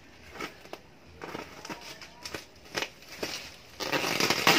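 Bubble wrap crinkling and crackling as hands pull it back from a cardboard box: separate crackles at first, then a louder, denser rustle near the end.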